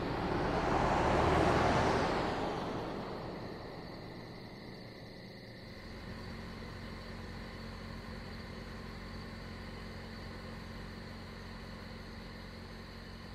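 A car drives past, its engine and tyre noise swelling and then fading over the first three seconds. After that a car engine idles steadily and low.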